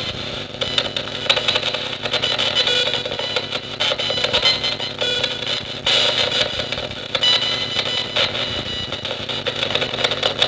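Nanocom Coffin Edition spirit radio scanning through radio stations: continuous choppy static, broken up many times a second by clipped snatches of broadcast sound.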